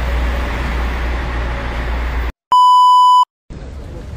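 Steady street noise with a low rumble beside a parked coach cuts off about two seconds in, followed by a single steady electronic beep, a pure tone of about 1 kHz lasting under a second, then quieter outdoor ambience.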